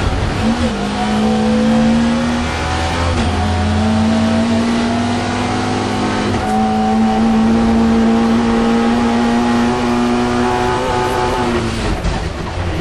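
Mk2 Ford Escort competition car's engine, heard from inside the cabin, pulling hard at high revs under acceleration. The note dips briefly about three times and falls away near the end as the throttle eases off.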